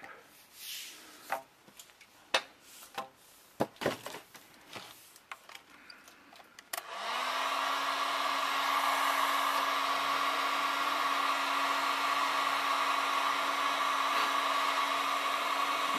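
A few light clicks and knocks, then about seven seconds in an electric heat gun switches on, its fan whine rising briefly to a steady pitch, and runs with a steady blowing hiss as it heats the end of a polyethylene pipe to soften it.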